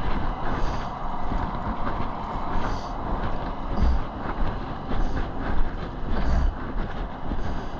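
Steady highway traffic noise, cars and trucks rushing past at speed.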